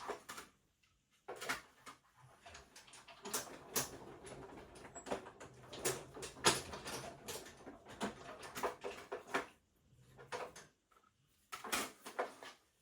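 Manual die-cutting machine cranked, its plates rolling through with a steady low rumble for about seven seconds, amid irregular clicks and knocks of the plates and paper being handled.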